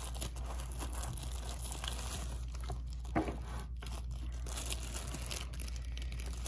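Thin plastic bag crinkling and rustling as a model locomotive is unwrapped by hand, with small irregular crackles throughout.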